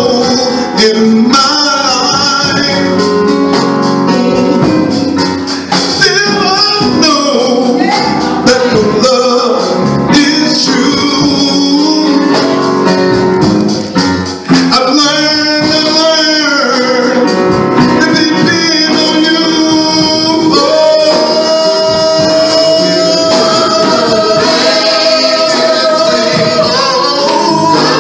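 Live gospel singing: male lead voices with women singing backup, over band accompaniment. Partway through, one voice holds a long, steady note.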